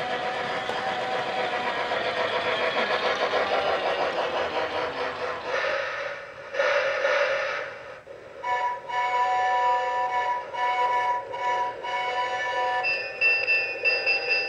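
Battery-powered Lionel G-gauge toy train running on its plastic track, with steady motor and gear noise. About six seconds in a louder rushing burst sounds, and from about eight seconds on the train's electronic bell sound effect rings over and over, changing to a higher ring near the end.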